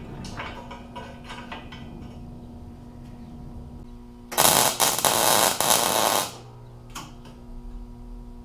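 MIG welder arc crackling for about two seconds as a short weld joins a steel tab to the rim of an expanded-metal grill grate. Before it come light metal clinks as the pieces are set in place, over a steady hum.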